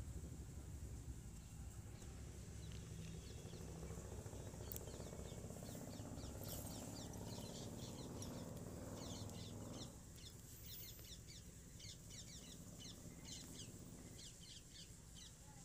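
Thick potato-and-spinach curry gravy bubbling as it simmers in the pan, with many small pops several times a second. A low steady hum runs underneath and stops about ten seconds in.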